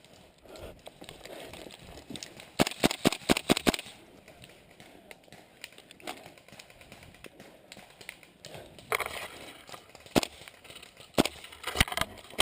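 Airsoft rifle fire: a quick string of about seven sharp shots a little over two seconds in, then single shots spaced out in the second half, with faint rustling of movement between them.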